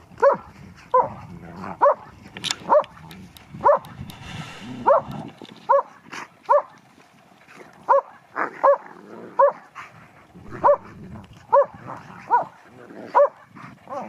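A dog barking over and over in play, short sharp barks coming at about one a second.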